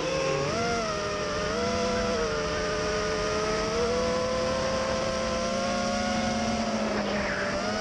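The four Cobra 2204 2300kv brushless motors of a 5-inch FPV racing quadcopter, spinning triple-blade props, whine steadily as picked up by the camera on the frame. Their pitch wavers a little with throttle, with a short rising whine near the end.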